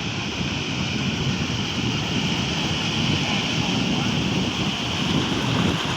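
Wind buffeting the microphone over the steady wash of rough surf.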